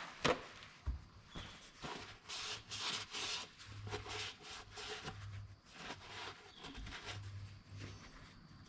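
Blue paper shop towel rubbing and rustling as it wipes out the bore of a tractor power steering cylinder housing, in short irregular scrubbing strokes, with a sharp snap near the start.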